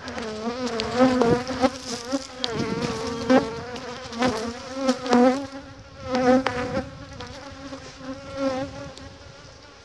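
Honeybees buzzing around an opened hive, bees passing close so the buzz wavers up and down in pitch, with scattered sharp knocks as the hive's frames are worked loose.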